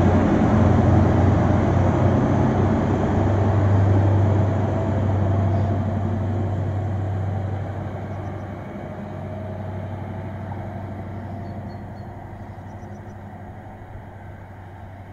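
Diesel engine drone of an HST's Class 43 power car as the 4-car train moves away along the track. It is a deep, steady hum that fades gradually into the distance.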